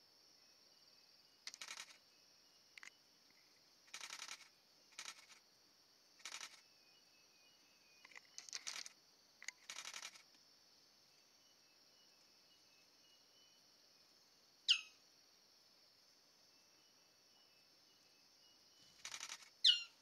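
Forest ambience with a steady high insect drone. About ten short rasping bursts come in the first half and again near the end. Two loud, sharply falling whistled bird calls sound, one about fifteen seconds in and one at the very end.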